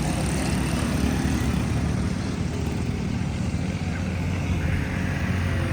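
Honda CD70 motorcycle's small single-cylinder four-stroke engine running steadily.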